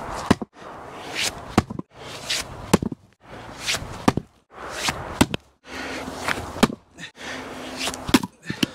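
Fiskars splitting maul striking an ash round on the chopping block again and again. There are sharp knocks about every one to one and a half seconds, each led by a rushing noise.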